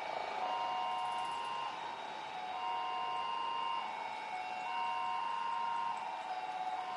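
Repeating two-tone electronic warning signal: a higher tone held about a second, then a lower one, the pair repeating about every two seconds over a steady background hiss.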